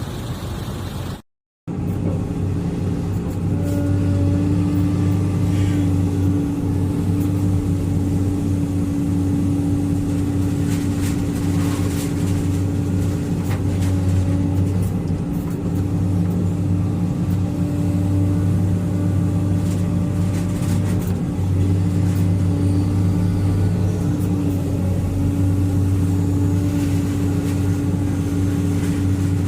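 An engine running at a steady speed with an even, constant hum. It cuts out abruptly for a moment about a second and a half in.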